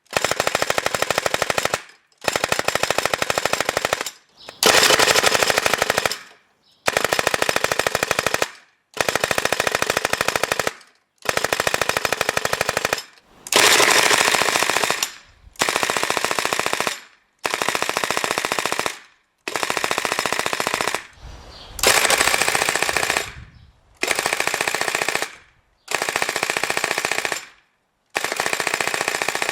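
Shoei airsoft MG42 replica dry-firing without BBs: about fourteen long bursts of very rapid fire, each a second and a half to two seconds long, with short pauses between.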